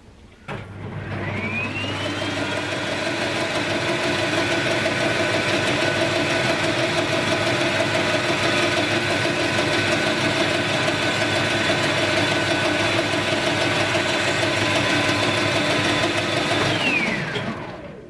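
Metal lathe spinning up with a rising whine, running steadily, then winding down with a falling whine about a second before the end.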